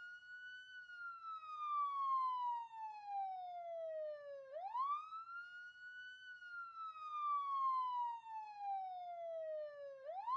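Police siren wailing: a single tone that climbs quickly and then slides slowly down, one slow rise-and-fall cycle about every five and a half seconds, starting a new climb about four and a half seconds in and again near the end.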